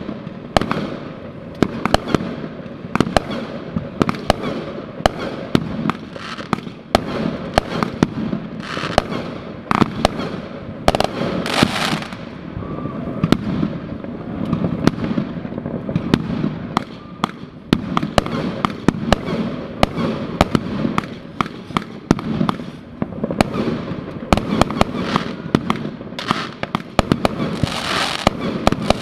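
Fireworks, rockets and aerial shells, going off together: a dense, irregular string of sharp bangs and pops over a continuous low rumble of more explosions. Longer hissing bursts come about eleven seconds in and near the end.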